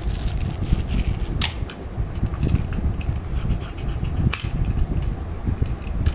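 Two sharp clicks from a toy AK-47 gun, about three seconds apart, over a steady low rumble.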